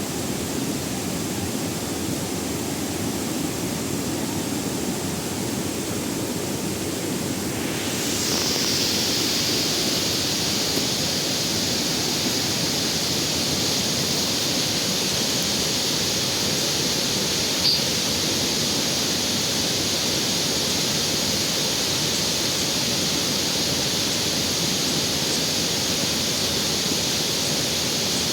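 Steady rush of falling or flowing water. About eight seconds in, a steady high hiss joins it and stays.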